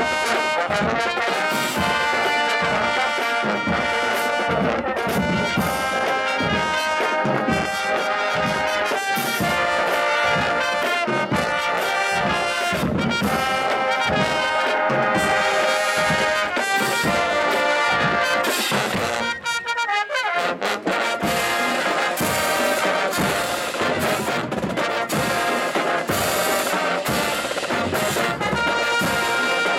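HBCU marching band playing: trumpets and trombones over drums, with a brief break and a falling slide about twenty seconds in before the full band comes back.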